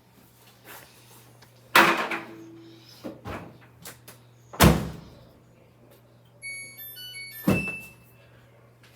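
Three heavy thunks about three seconds apart, with smaller knocks between them, from the washing machine being loaded and its door shut. Near the end the control panel gives a quick run of electronic button beeps. A low steady hum sits under it all.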